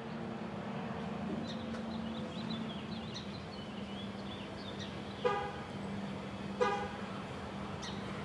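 Two short toots of a vehicle horn, about a second and a half apart, over a steady low hum, with birds chirping during the first few seconds.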